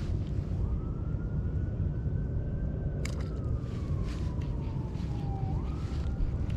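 A distant siren wailing faintly, its pitch rising, holding, falling slowly, then sweeping back up near the end, under a steady low rumble of wind on the microphone. A sharp click about three seconds in.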